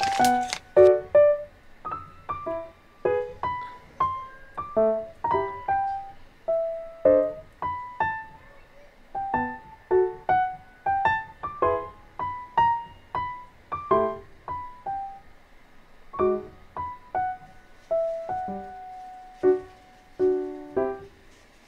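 Background music: a light, gentle piano melody played note by note.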